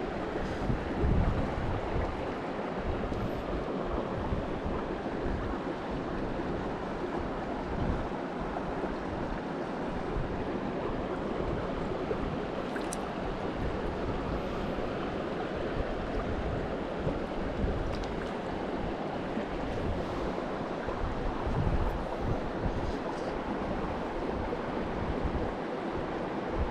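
Mountain stream water rushing steadily, with now-and-then low rumbling gusts of wind on the microphone.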